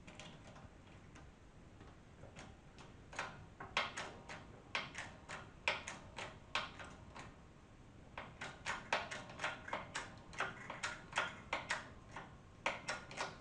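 A workshop press being worked to push a new motorcycle front fork seal into the fork leg: a run of short sharp clicks, two or three a second, with a brief pause before a quicker run in the second half.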